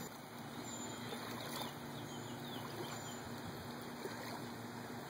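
Boat motor running steadily at low speed with a low even hum, and water lapping and trickling along the hull.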